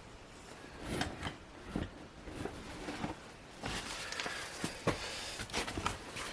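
Scattered light clicks and taps of plastic trim being handled and pressed during a hot-staking repair, with a soft hiss for a couple of seconds past the middle.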